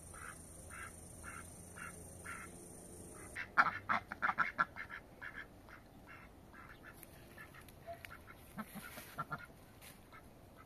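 A group of domestic ducks quacking in short, repeated calls, with a louder, faster cluster of quacks about three and a half seconds in, then scattered quacks.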